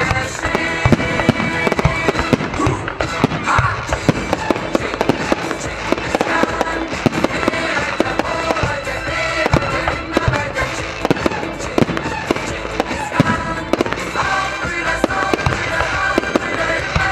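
Fireworks shells bursting in a rapid, continuous barrage over music.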